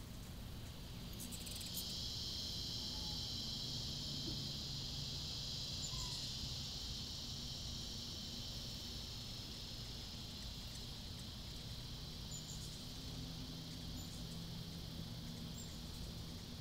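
Insects droning steadily in a high-pitched chorus that swells up about a second in, over a low steady hum.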